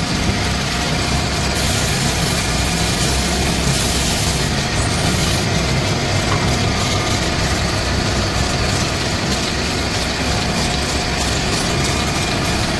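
Belt-driven wood lathe running steadily with a continuous hum, spinning a wooden charpai leg while colour sticks are pressed against it. A brighter hiss comes in from about a second and a half in and fades at about five seconds.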